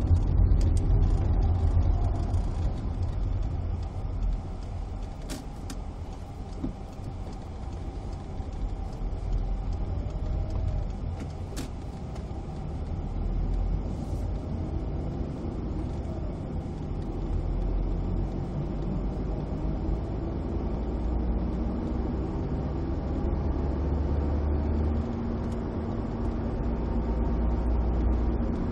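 Car driving on the road, heard from inside the cabin: a steady low engine and tyre rumble. It is a little louder in the first few seconds, then settles.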